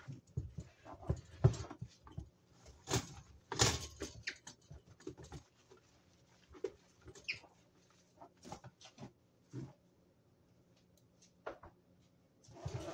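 Terry-cloth towel rubbing over a kitchen countertop while a toaster is held, shifted and set back down: irregular rubs and light knocks, busiest in the first few seconds and again near the end.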